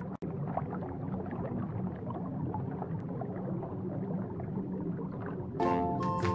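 Underwater ambience sound effect: a steady low water rumble with small bubbles blipping through it, cutting out for an instant just after the start. Music comes in near the end.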